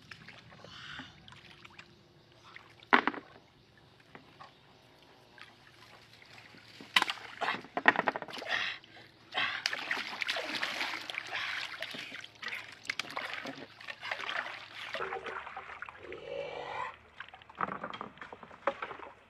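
Water splashing and sloshing around a wooden canoe, with a few sharp knocks, one about three seconds in and a cluster around seven to eight seconds. The splashing is heaviest from about nine to seventeen seconds.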